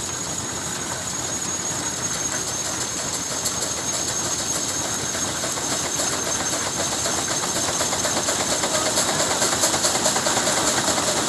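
Steam traction engine running, its exhaust chuffing rapidly up the smokestack over a steady high hiss of escaping steam; the chuffing grows louder toward the end.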